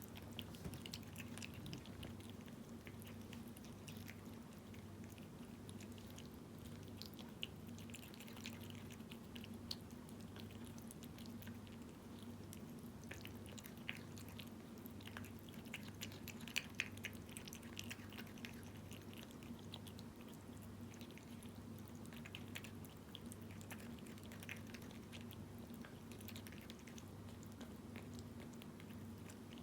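A cat eating wet cat food in jelly (Felix chicken): faint, irregular wet chewing and smacking clicks.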